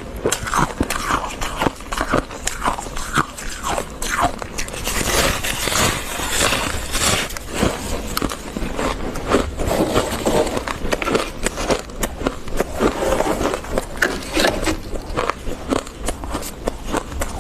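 Close-miked crunching of fluffy freezer frost: a dense, steady run of crisp crunches, thickening in places into a continuous grinding crunch.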